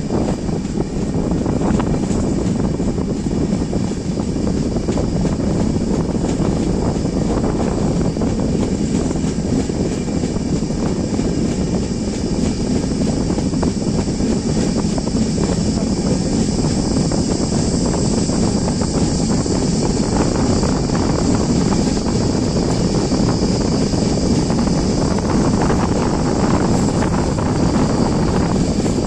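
Steady rush and rumble of an Indian express passenger train running at speed, heard from beside its coach. Wind buffets the microphone.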